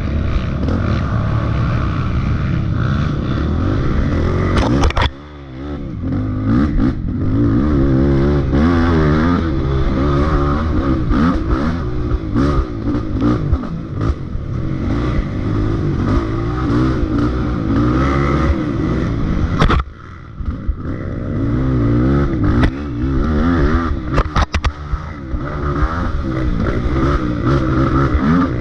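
Dirt bike engine revving up and down as the bike is ridden hard along a rough trail, its pitch rising and falling with the throttle. The engine drops away sharply twice, about five seconds in and again about twenty seconds in, before picking back up, with scattered knocks and clatter from the bike over the rough ground.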